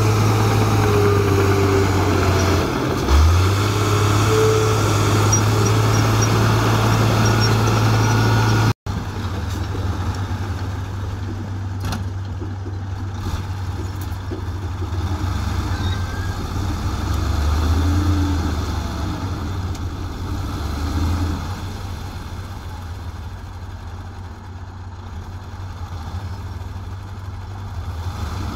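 Diesel engine of a crawler bulldozer running steadily as it pushes a load of soil. After an abrupt cut, a dump truck's diesel engine idles and swells a couple of times while its bed is raised to tip out earth.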